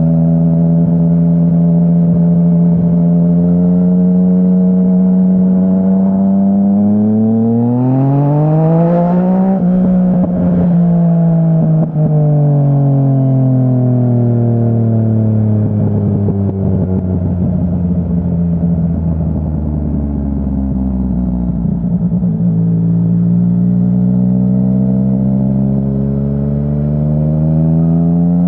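2017 Yamaha Tracer 900's inline three-cylinder engine through a full Dominator HP3 exhaust, heard on board while riding: it holds a steady speed, accelerates hard with the pitch climbing for a few seconds, then slows gradually with crackles on the overrun, and pulls up in revs again near the end.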